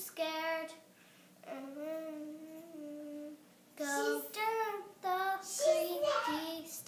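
A child singing a slow, simple tune unaccompanied, in phrases of held notes with two short breaths between them.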